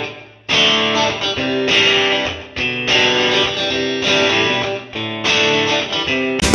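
Background music: guitar playing held chords, each lasting about a second with short breaks between them.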